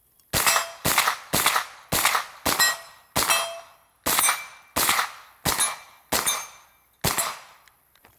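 Wilson Combat AR9-G 9mm blowback carbine firing about a dozen semi-automatic shots at a steady pace of roughly two a second, slowing a little in the second half, each shot with a short echo.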